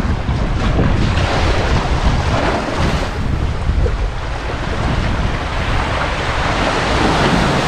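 Small sea waves washing in and out between low rocks onto a sandy shore, in slow swells, with wind rumbling on the microphone.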